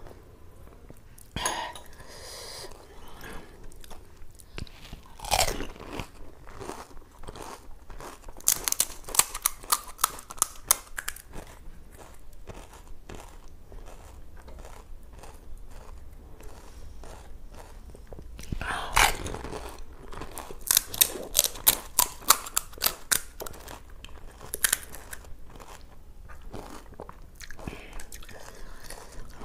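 Crisp pani puri shells crunching as they are bitten and chewed, in two long runs of rapid crunches, one about a third of the way in and one past the middle, with a few single sharp cracks between.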